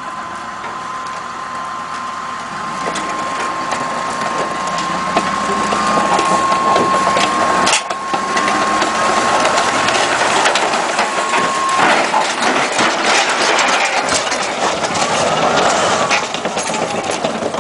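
Steel tracks of a tracked self-propelled gun clanking and grinding as it climbs onto a lowboy trailer and tips over, with a steady high whine that stops about two-thirds of the way through. The clatter grows louder about a third of the way in.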